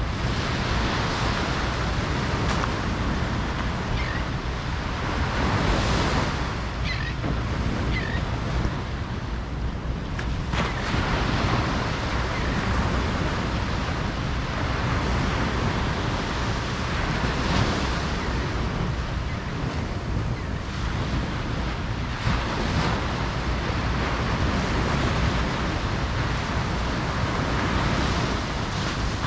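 Ocean surf washing onto a beach, a continuous rush that swells every few seconds as waves break, over a steady low rumble of wind on the microphone.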